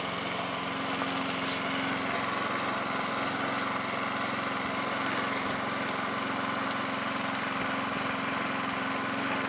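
Small engine running at a steady speed, with a constant hum and no change in pitch.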